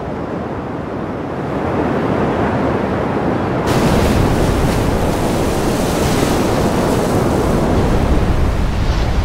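Ocean surf: waves breaking in a steady rush of water that suddenly turns louder and hissier a little over three and a half seconds in.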